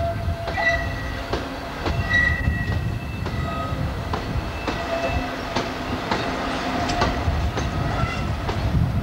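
Empty MGR coal hopper wagons running past over jointed track, clicking irregularly over the rail joints, under the low drone of the Class 56 diesel locomotive propelling them. Thin, high wheel squeal comes and goes.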